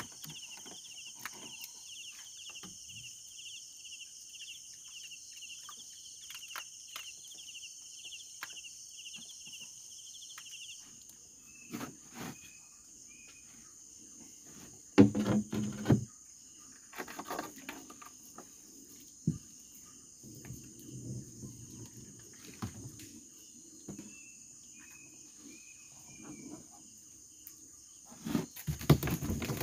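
Insects buzzing in a steady high drone, with a pulsing trill for the first ten seconds or so and scattered short chirps after it. Two brief louder bursts of knocking and rustling break in, one about halfway through and one near the end.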